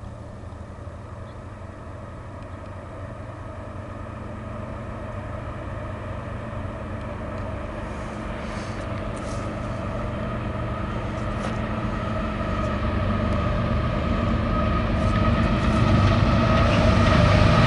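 Diesel freight locomotives approaching, their engine drone growing steadily louder as the train closes in.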